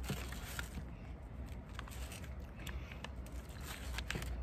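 Scattered small clicks and light crackling from hands handling the salmon and its packaging, over a low steady rumble.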